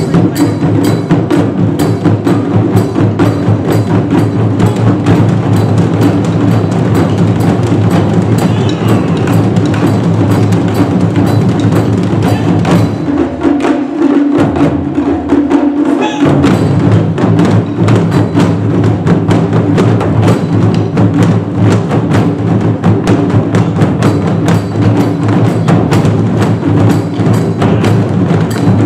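Japanese taiko drum ensemble playing a fast, dense rhythm, many drums struck with wooden sticks. About halfway through the deepest drums drop out for a few seconds before the full ensemble comes back in.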